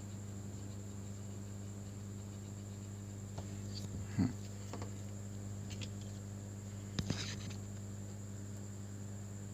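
A steady electrical hum with a thin high whine above it, and a few faint small taps and clicks about four and seven seconds in, as a circuit board is worked on with hand tools during soldering.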